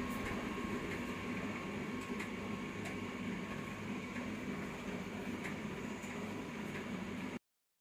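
Screw-type oil expeller press running, pressing oilseed: a steady mechanical hum with a few faint clicks, cutting off abruptly near the end.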